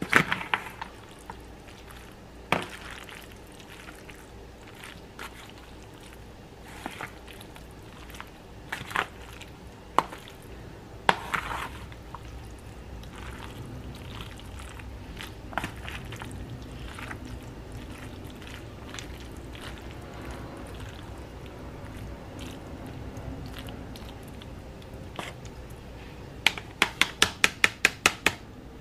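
Wet, squishy stirring of macaroni and cheese with a plastic spoon in a foil pan, with scattered sharp clicks and scrapes of the spoon against the foil. Near the end, a quick run of about ten sharp clicks, several a second.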